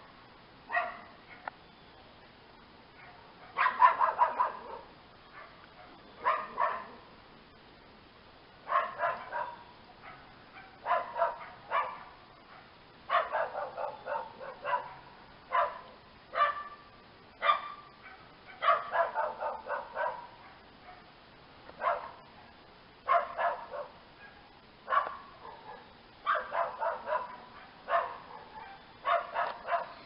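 An animal calling in short, pitched calls bunched into quick clusters, repeated every second or two without a break.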